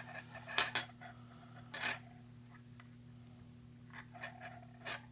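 Faint handling noise of heavy monofilament leader being threaded back through aluminium crimp sleeves: a few short scrapes and clicks, one about half a second in, one near two seconds, and a run of light rubs near the end, over a steady low electrical hum.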